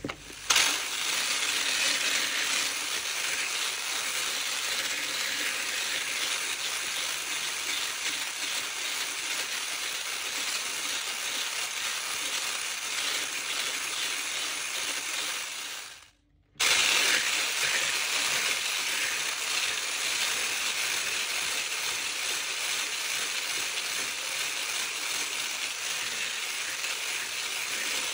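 Handheld electric mixer with a wire whisk running steadily, beating egg yolks and sugar into a pale, fluffy cream. The sound cuts out for about half a second a little past halfway, then carries on.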